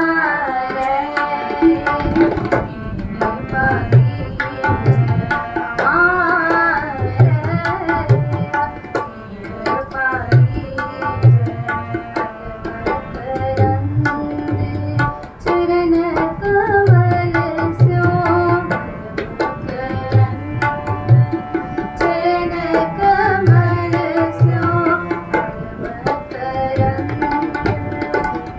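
Sikh shabad kirtan: a woman singing a devotional hymn to her harmonium's steady held chords, with tabla accompaniment whose deep bass strokes keep a regular rhythm.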